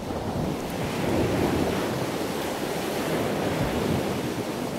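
Steady rush of wind and waves, with wind buffeting the microphone, swelling over the first second and then holding even.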